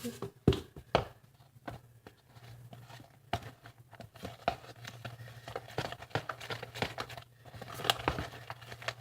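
Hands mixing and kneading a flour, salt and water dough in a bowl: irregular rustling with small taps and clicks, over a faint steady hum.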